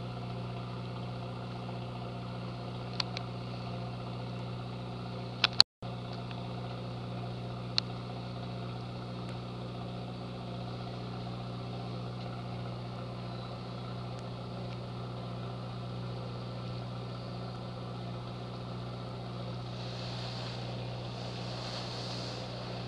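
A fishing boat's onboard engine running with a steady low hum, with a few sharp clicks or knocks in the first eight seconds. Near the end comes a breathy whoosh in two pulses as a whale blows at the surface.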